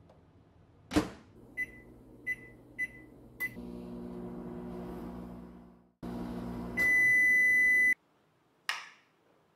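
Microwave oven: a click as the door shuts, four short keypad beeps, then the oven running with a steady hum. As the run ends, one long beep of about a second signals that cooking is done, and a click follows.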